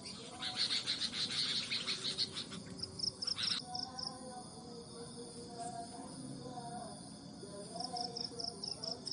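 Insects chirping: a fast buzzy pulsing for the first few seconds, then two short high pulsed trills, one before the middle and one near the end, with faint bird calls underneath.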